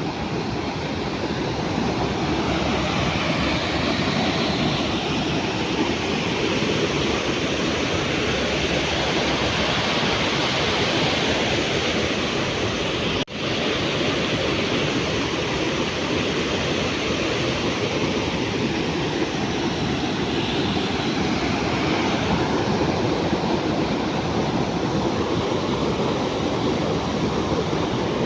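Steady rushing of river water, with a momentary dropout about 13 seconds in.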